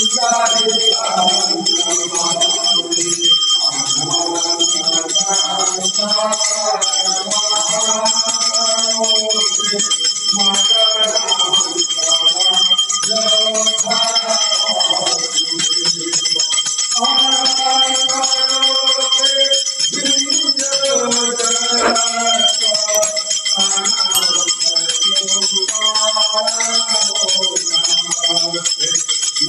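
A brass hand bell rings without pause over a group of men singing a devotional aarti hymn together.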